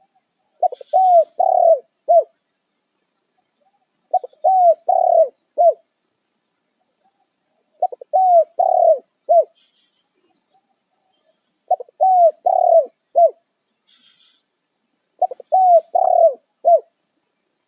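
Spotted dove (tekukur) cooing its calling song: five phrases, each of four or five low, arched coos, a short note, two or three longer ones, and a short final note, repeated about every three and a half seconds with silence between. It is the bird calling to others of its kind.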